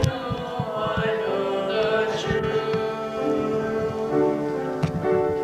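Music with a group of voices singing together, holding long notes.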